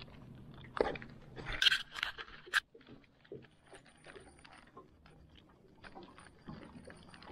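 A few sharp knocks and clatters in the first three seconds, then a run of faint, irregular small clicks: fishing gear being handled in a small boat.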